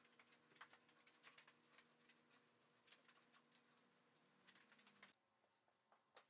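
Near silence: faint room tone with a low steady hum and scattered light clicks, the hum dropping away abruptly about five seconds in.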